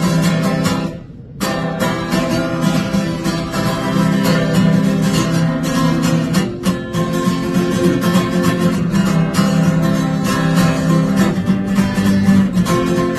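Acoustic guitar solo: quick picked notes played as an instrumental break between the sung verses of a rock-and-roll song. There is a brief gap about a second in.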